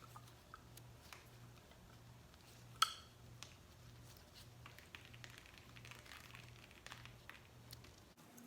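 Faint handling sounds of an oil-primed Melling 10295 LS oil pump being worked by hand as its inner gear is turned to prime it: small wet clicks and taps, with one sharper click about three seconds in. A low hum pulses about twice a second underneath and cuts off near the end.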